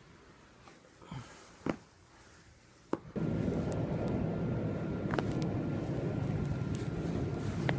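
Two sharp cracks from the neck or upper spine being self-adjusted, the joints popping. About three seconds in a steady low rumble starts suddenly, carrying a faint steady whine and a few more small clicks.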